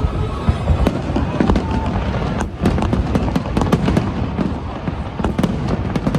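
Fireworks going off in rapid succession: a dense stream of sharp crackles and pops over a continuous low rumble of bursts, with a brief lull about two and a half seconds in.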